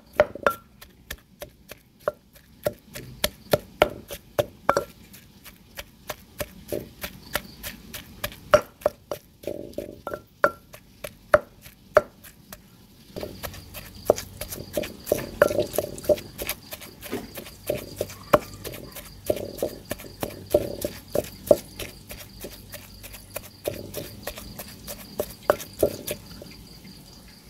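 Wooden pestle pounding cooked shrimp and dried chilli in a mortar, about two strikes a second, mashing the shrimp to a paste.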